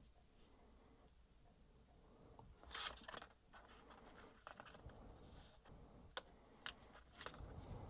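Faint handling noise from hands working at a small action camera: a brief scrape or rustle about three seconds in, then soft fiddling and two sharp little clicks near the end.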